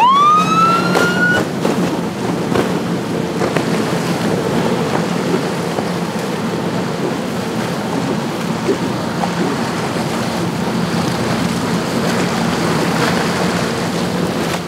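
A US Coast Guard SAFE Boats 33 Full Cabin patrol boat gives a rising siren whoop over the first second and a half. Its triple Mercury 300 outboards then run steadily at speed, with water rushing past the hull.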